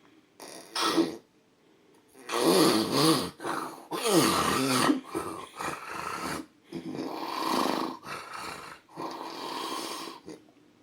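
A man snoring loudly in his sleep: a short snore about a second in, then a long run of heavy snores with snorts from about two seconds in, the loudest in the middle where the pitch slides downward, followed by three shorter snores.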